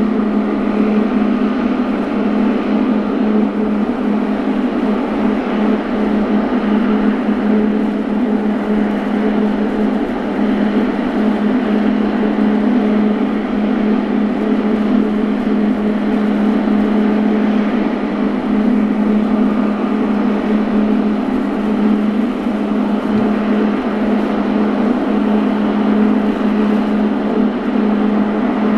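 Boeing 777-300ER's twin GE90-115B turbofan engines running steadily at idle while the airliner stands still on the runway: a loud, even drone with a steady low hum.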